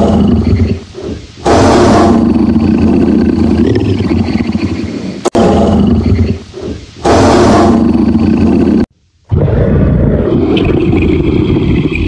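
Tiger roaring: several loud, deep roars one after another, with abrupt breaks between some of them about five and nine seconds in.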